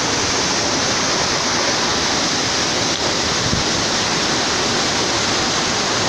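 A 70-metre waterfall, its falling water making a steady, even rush of noise.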